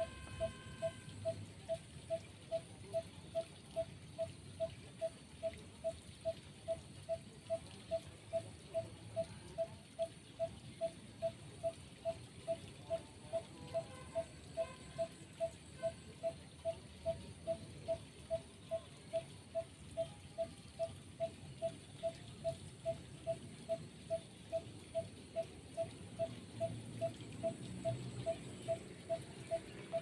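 An animal's repeated call: one short, clear note of the same pitch, about twice a second at an even pace, over a faint steady high hiss.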